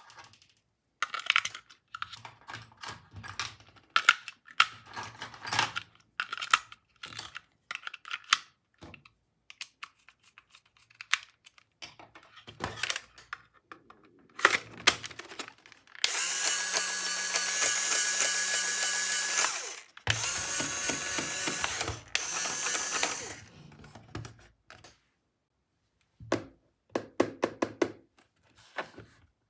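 Small battery motor of a toy power tool running twice, about three and a half seconds each time, with a steady whine. Around it come plastic clicks and taps from the toys being handled.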